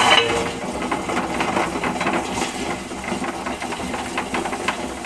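Preethi tabletop wet grinder running, its stone rollers crunching and knocking over soaked rice and lentils just poured into the steel drum before any water is added. A steady noise is broken by many irregular sharp clicks.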